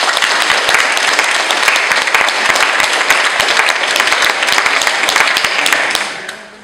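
A group of people clapping in applause, dying away near the end.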